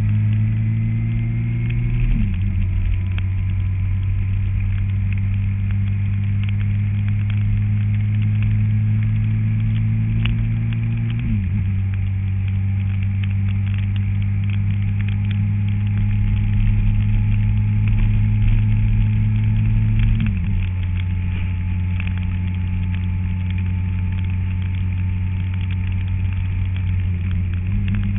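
Motorcycle engine running steadily, its pitch stepping down and back up a few times.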